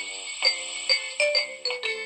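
A Nokia 2600 mobile phone playing one of its preloaded ringtones: a bright synthesized melody of quick, short notes, with several notes sounding together.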